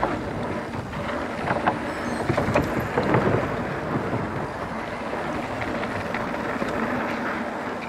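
Mountain bike rolling down a dirt trail: knobby tyres on dirt and gravel, with small knocks and rattles from the bike, and wind buffeting the action camera's microphone.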